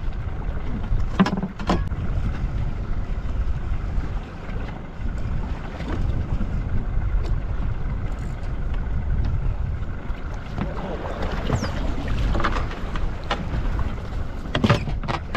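Steady low rumble aboard a fishing boat at sea, with a few sharp knocks here and there.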